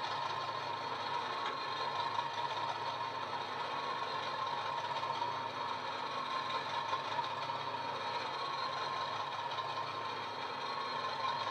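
Recorded Class 50 diesel locomotive engine, an English Electric 16CSVT V16, idling steadily. It is played by a Coastal DCC LokSound 5 sound decoder through the small speaker of a stationary Hornby OO model, partway through the decoder's five-minute cold start sequence.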